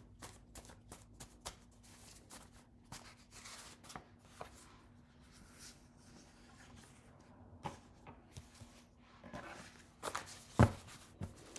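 Deck of oracle cards being shuffled and handled: a run of faint, irregular clicks and flicks, with a few louder taps toward the end as cards are set down.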